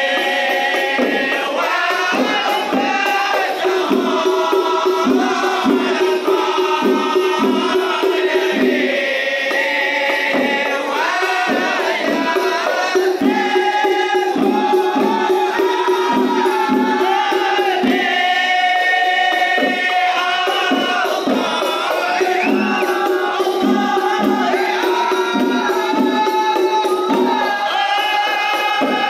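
Rebana ensemble performing: a group of men singing in unison over a steady, fast beat of hand-struck rebana frame drums.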